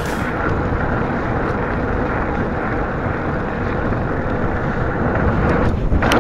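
Wind buffeting the camera microphone and the rumble of a mountain bike's tyres on a rocky dirt trail, a steady noise, with a sharp knock near the end.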